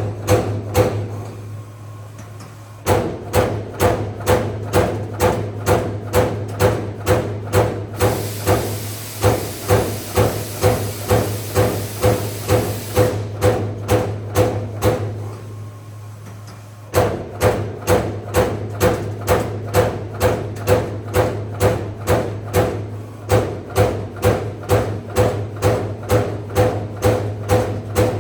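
Servo-electric CNC turret punch press punching sheet metal in a rapid series of sharp knocks, about three a second, stopping twice for a couple of seconds. A steady low hum runs underneath, and a hiss sounds for several seconds in the middle.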